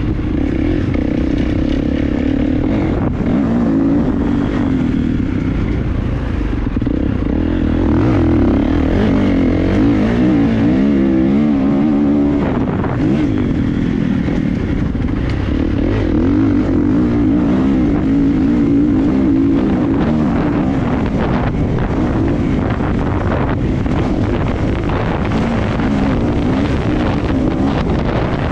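Motocross bike engines running on the track, their pitch wavering up and down as the throttle is opened and closed.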